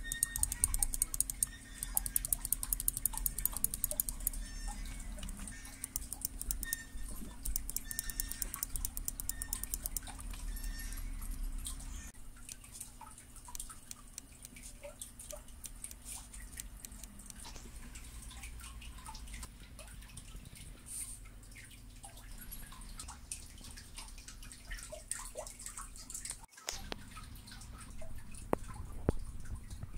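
Rapid runs of fine clicks from the knurled adjustment wheel of a Mad Catz RAT 6+ gaming mouse turned by a finger through its detents, then slower, scattered clicks and small knocks as the plastic-and-metal mouse is handled.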